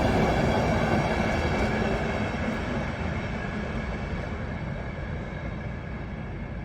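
Passenger train running on the rails and moving away, its rumble growing steadily quieter.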